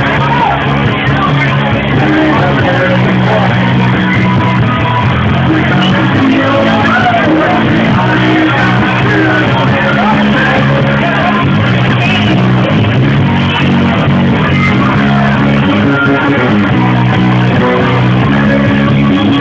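Rock band playing live and loud, with electric guitar to the fore over bass.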